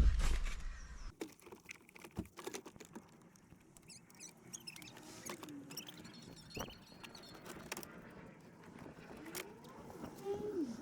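Scattered clicks, light knocks and rustling, with a few short squeaks, as a car's plastic dashboard and its wiring harnesses are handled and shifted into place.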